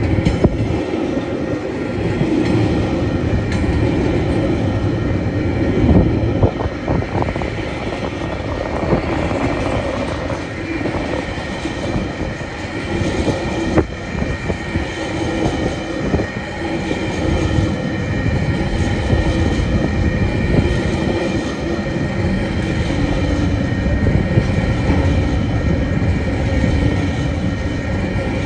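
Loaded freight wagons, coal hoppers giving way to container flat wagons, rolling past close by: a steady rumble and clatter of steel wheels on the rails, with a few louder knocks about six seconds in.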